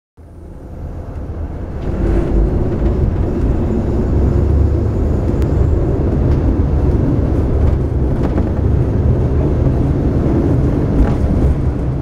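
Diesel engines of a KiHa 52 railcar, DMH17 type, running steadily under power as the train pulls away from a station and gathers speed, heard from inside the passenger cabin as a low engine drone.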